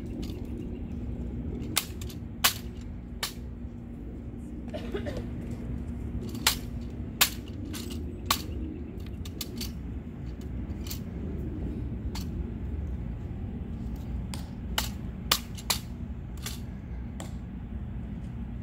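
Irregular sharp clicks and snaps of white-gloved hands slapping and working an M14 rifle during a rifle inspection, over a dozen spread unevenly, the loudest about two and a half and seven seconds in. A steady low hum runs underneath and fades out about two-thirds of the way through.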